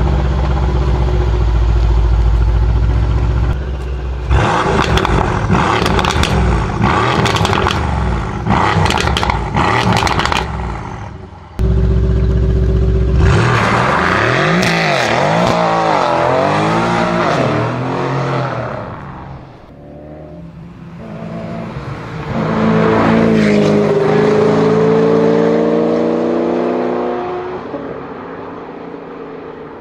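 Mercedes-AMG C63 S coupé's twin-turbo V8 revved hard, its exhaust crackling and popping between blips, then launched with wheelspin, the engine note rising and falling through the gears as it pulls away. Later a second sports car accelerates, its engine note climbing.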